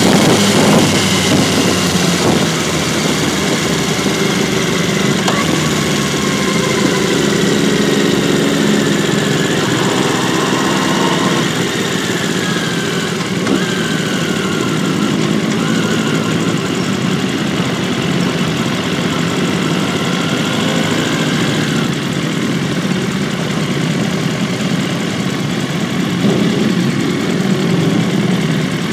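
Sport motorcycle engine running at low speed, its pitch rising and falling gently a few times as the throttle changes, with wind noise over the microphone.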